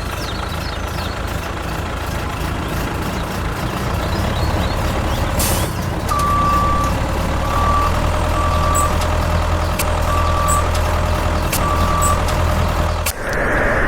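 Heavy vehicle engine running steadily, with a reversing beeper sounding five short beeps over the middle of the stretch. Near the end the sound cuts abruptly to a different hiss.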